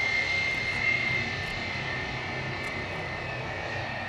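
Military jet engines running at low power as the fighters taxi on the runway: a steady high whine over a rush of engine noise, dropping slightly in pitch about halfway through.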